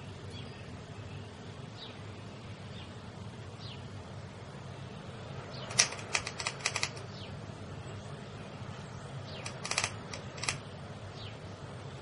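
A cat chattering at birds: two bursts of rapid clicking, the first about six seconds in and the second near ten seconds. Faint short high chirps come now and then.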